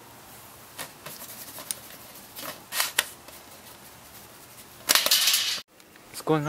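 A few scattered sharp clicks or pops over faint background hiss. About five seconds in comes a loud, harsh burst of noise lasting under a second.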